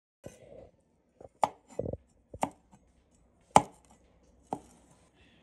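Knife chopping on a cutting board: about six separate, unevenly spaced strikes, roughly one a second.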